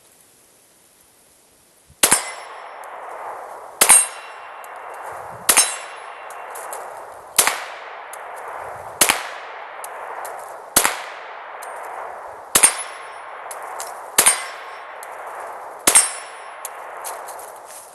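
Glock 20SF pistol with a .38 Super conversion barrel firing .38 Super ball ammunition: nine single shots, evenly spaced about a second and a half to two seconds apart, each followed by a long ringing decay.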